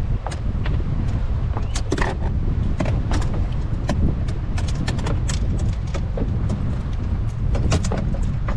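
Key West 1720 boat under way: a steady low engine-and-hull rumble with wind on the microphone, broken by frequent sharp clicks and knocks.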